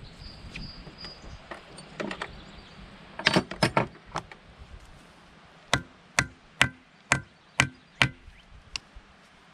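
A short clatter of tools being picked up from a tray, then six sharp ringing taps, about two a second, as a hand tool strikes the metal gear housing of a Mercruiser Alpha One Gen 1 sterndrive.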